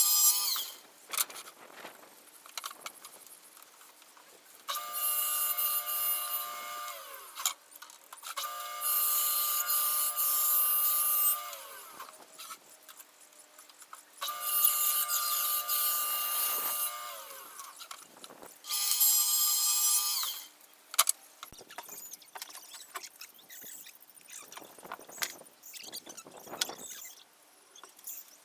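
Handheld electric power tool run in four short bursts, its motor whining at a steady pitch and winding down after each release, with light clatter of handling and wood between bursts.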